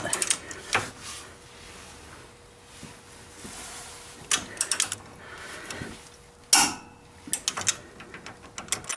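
Ratcheting socket wrench clicking in several quick bursts of metal clicks as it tightens the Stover nut on a steering tie rod's clevis bolt toward 100 ft-lb. The loudest, sharpest click comes about six and a half seconds in.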